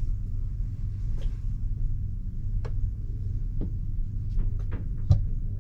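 Sharp metallic clicks and taps from a key working in a cheap home safe's lock, a few spaced apart and then a quick cluster near the end, the last the loudest, over a steady low rumble.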